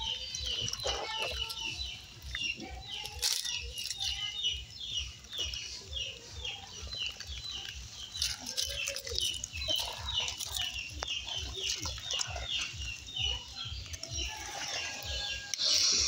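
A bird calling over and over: short, high chirps repeated at about three a second, with scattered lower, clucking calls among them.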